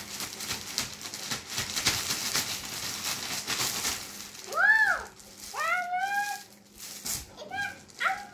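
Plastic courier mailer bag rustling and crinkling as it is shaken and emptied, with a plastic-wrapped T-shirt pulled out. From about halfway through, a child gives a few short high-pitched exclamations that rise and fall in pitch.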